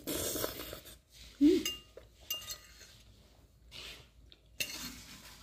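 Metal eating utensils clinking and scraping against a plate during a meal, with two short ringing clinks in the middle and a brief low sound about one and a half seconds in.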